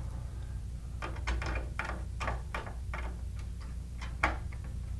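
Small screwdriver working a terminal screw on an alarm control panel's terminal strip: a run of light, irregular clicks and ticks, about four a second, as two resistor leads and wires are fastened under one common terminal.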